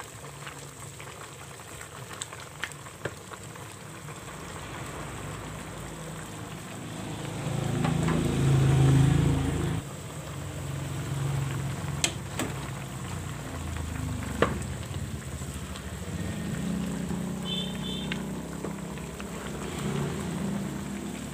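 Chicken adobo with potatoes simmering and sizzling in a pan, with a few sharp clicks of the spatula against the pan. A louder low rumble swells about seven seconds in and cuts off suddenly near ten seconds.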